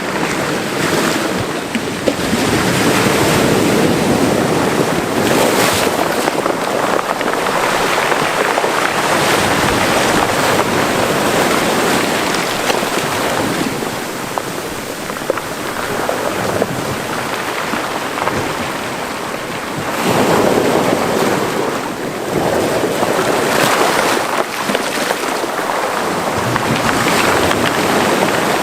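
Mediterranean Sea waves washing into a small cove, a steady rush of surf that swells and fades in repeated surges.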